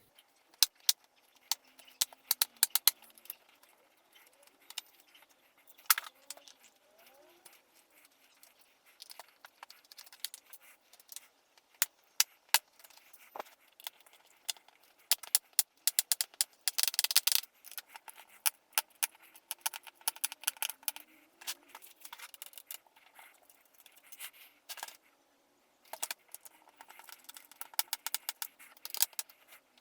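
Irregular small clicks, taps and rattles of tools on the plastic bottom case of a Lenovo Legion Y520 laptop as its screws are undone and the case is pried off, with a dense run of clicking about halfway through.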